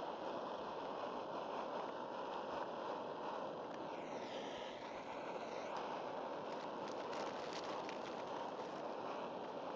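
A steady rushing noise, even throughout, with a brief faint glide in pitch about four seconds in.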